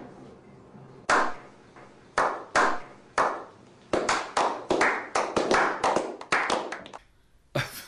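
A slow clap from a small group: single hand claps about a second apart that quicken into faster, steady clapping, then stop about seven seconds in.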